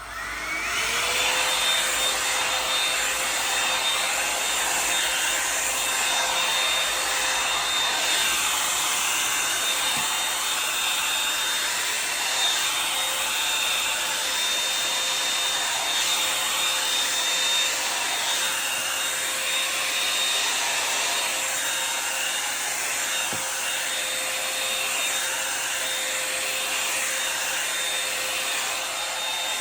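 Revlon One-Step Volumizer hot-air brush switched on: its motor spins up in the first second, then blows steadily with a high whine over a rush of air.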